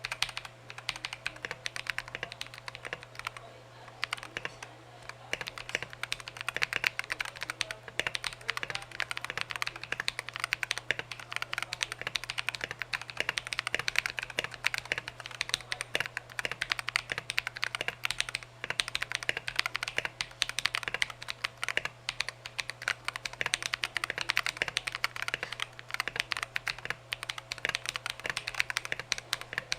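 Mechanical keyboard with Akko CS Ocean Blue switches lubed with Krytox 205g0, being typed on continuously in quick, dense keystrokes. A low steady hum runs underneath.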